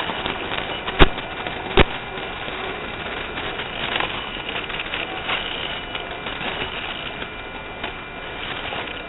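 RC scale crawler truck heard through its own onboard microphone: a steady whirring hiss of the drivetrain, with two sharp knocks about a second in and just under two seconds in.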